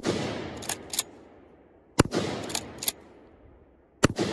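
Pump-action shotgun firing three shots about two seconds apart, the first right at the start, each crack trailing off over about a second. Between shots come two sharp metallic clacks of the pump being racked back and forward.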